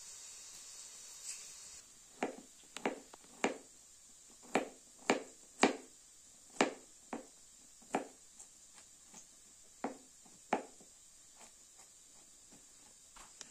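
Chopping on a board: a slow, uneven run of sharp strikes, about two a second, starting about two seconds in.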